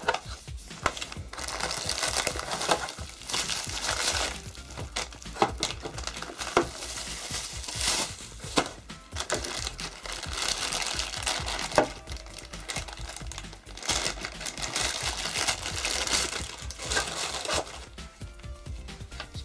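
Packaging crinkling and rustling as it is handled, in repeated bouts of a second or two with small clicks, over background music.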